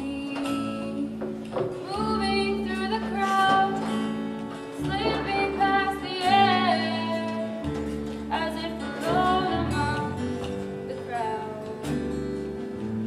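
A woman singing a slow song from a stage musical, with vibrato on held notes, accompanied by guitar and low sustained notes.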